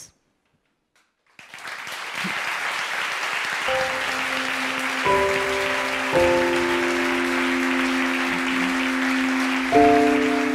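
Closing music: after a brief silence a steady hiss fades in, and about four seconds in slow, held chords enter over it, changing every second or two.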